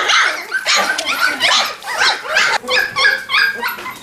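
Standard poodle puppies yipping and whimpering in short, high-pitched calls, which settle into a steady run of about three yips a second in the second half.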